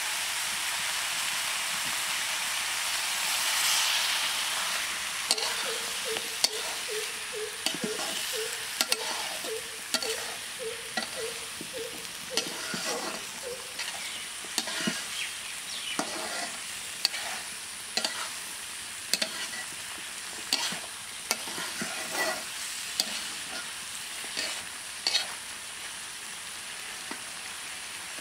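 Pumpkin, amaranth greens and shrimp sizzling in a wok, with a metal spatula stirring and scraping against the pan in repeated strokes, roughly one to two a second, from about five seconds in until shortly before the end.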